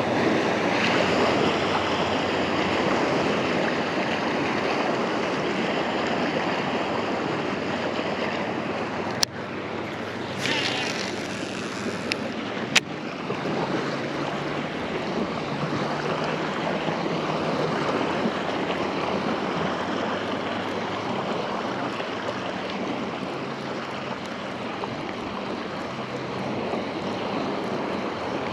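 Steady rushing noise of wind and lake water around the microphone, with two sharp clicks about nine and thirteen seconds in.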